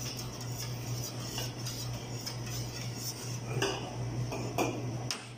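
Metal spoon clinking and scraping against a can and the rim of a stainless steel pot in irregular clinks, over a steady low hum.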